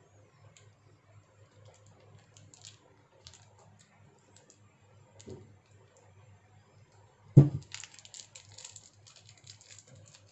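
Plastic tamarind sachet being handled and unwrapped: scattered small clicks and crinkles, one loud thud about seven seconds in, then a second or so of dense crackling.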